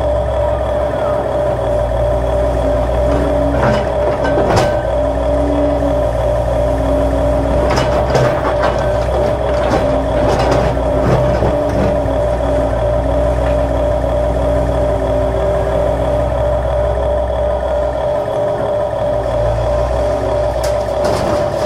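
Electric gear motors of a Huina RC excavator humming steadily as it swings and works its boom and bucket, with further motor tones starting and stopping as each movement begins and ends. A few sharp knocks come about four and a half seconds in and again around eight to eleven seconds, as the bucket works the dirt and stones.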